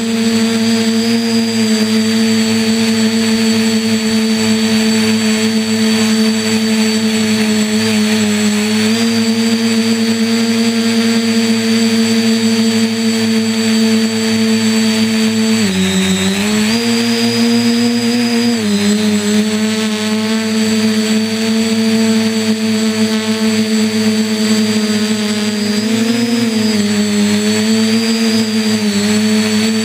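Electric motors and propellers of a radio-controlled quadcopter, heard from on board, humming steadily with a high whine over the top. The pitch dips briefly about halfway through, then rises, and shifts up and down again near the end as the throttle changes.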